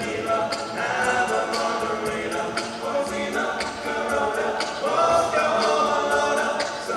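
Male a cappella group singing in several-part harmony, with a steady beat that sounds like vocal percussion.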